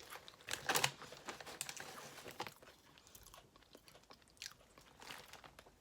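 Crunchy potato chips being bitten and chewed close to the microphone, with a burst of loud crunches about a second in and softer crunching after.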